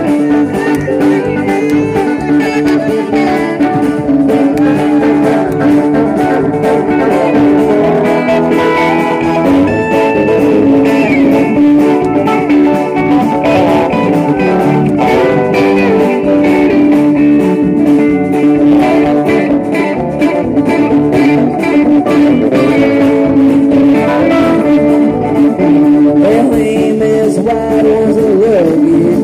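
Live band playing an instrumental jam: guitar lead lines with bending notes over rhythm guitar, bass and drums.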